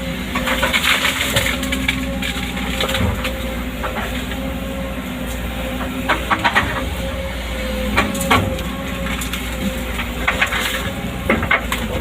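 Excavator engine running steadily, with scattered clanks and knocks from the machine working.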